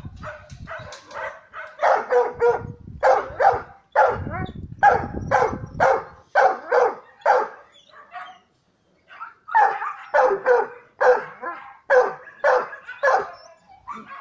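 Dog barking over and over, short sharp barks in quick runs of two or three, with a pause of about two seconds past the middle.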